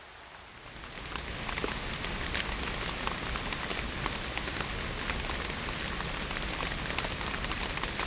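Rain falling on forest leaves: a dense, steady patter of drops, with many sharp individual drop ticks over a hiss. It fades in over the first second or so.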